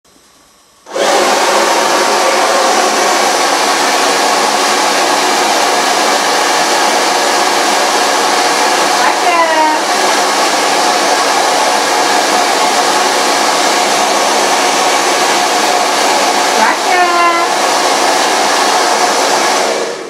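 A handheld hair dryer is switched on about a second in, runs with a steady blowing whir, and is switched off near the end. Two short calls that fall in pitch rise over it, about halfway through and again near the end.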